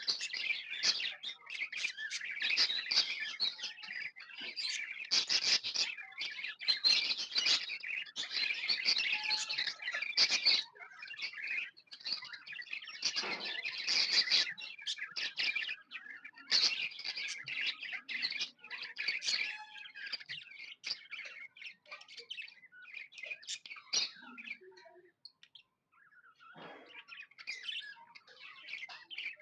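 Budgerigars chirping and warbling in rapid, overlapping runs of short high chirps, busiest through the first half and thinning out to scattered calls after about twenty seconds.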